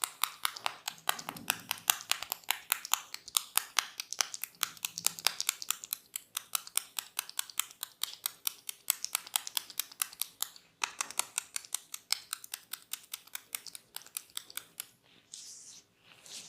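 A rapid, even run of sharp clicking taps, about seven a second, with a short break about eleven seconds in, stopping near the end.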